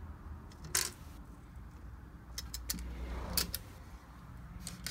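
Light handling sounds: a few scattered short clicks and taps, with a soft rustle about three seconds in, over a low steady hum.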